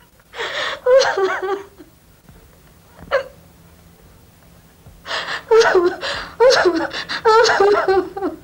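A woman sobbing in grief: breathy gasps and wavering, crying sobs in two bouts, the second longer, with one short sob about three seconds in.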